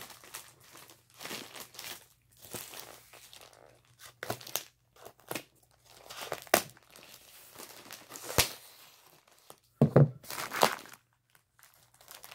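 Packing tape and plastic wrapping on a parcel being pulled and torn by hand: irregular crinkling and ripping bursts with a few sharp clicks, loudest about ten seconds in.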